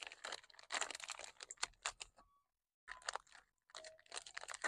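Clear plastic bag crinkling and crackling as a hand handles the dual-battery balancer packed inside it, in two spells with a short pause a little past the middle.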